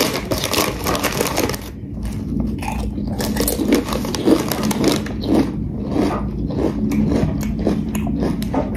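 A crinkly chip bag of Miss Vickie's jalapeño kettle chips being handled and pulled open: a dense run of sharp crackling at first, then separate crinkles a few times a second.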